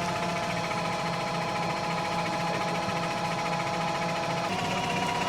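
Tractor engine running steadily with a drivetrain whine, the pitch shifting slightly about four and a half seconds in.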